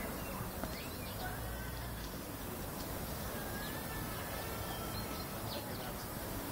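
Steady outdoor background noise with faint short chirps scattered through it.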